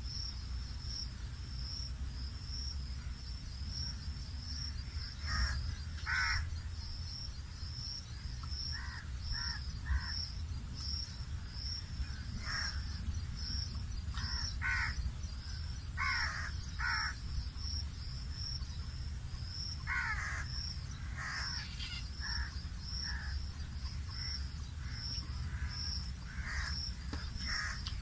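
Crows cawing, harsh calls in groups of two or three spread through the clip. Behind them run a steady high-pitched hiss and a regular high chirp about twice a second, with a low rumble underneath.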